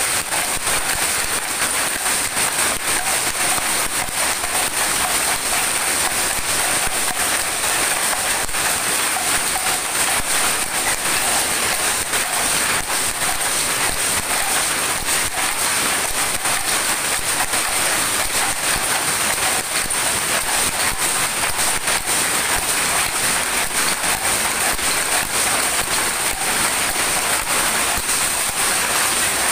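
Several shuttle power looms running together, making a loud, steady, dense clatter of fast overlapping knocks.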